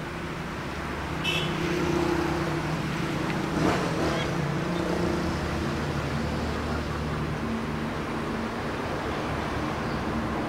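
Diesel bus engine running at a terminal, a steady low drone that swells about a second in. A brief high-pitched beep sounds about a second in, and a single sharp knock a few seconds later.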